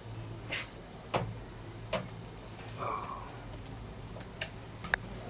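Washing-machine motor running on mains power under test, giving a low steady hum, with several sharp clicks and knocks from handling around it.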